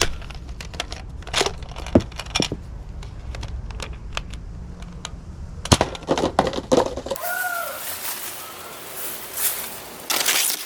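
Scattered sharp clicks, taps and crinkling over a low hum, with a short wavering tone just after seven seconds in.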